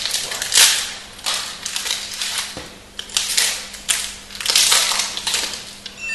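Foil wrapper of a Magic: The Gathering booster pack crinkling and tearing as it is ripped open by hand: a string of irregular crackles.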